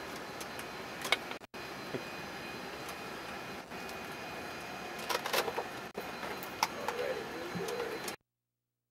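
Steady hiss and hum of the space shuttle Columbia's middeck cabin ventilation fans and equipment, with a few faint clicks and knocks. The sound drops out briefly about a second and a half in, and cuts to complete silence near the end.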